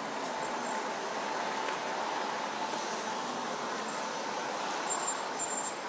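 Steady hum of congested city street traffic: cars, taxis and vans idling and creeping in a jam.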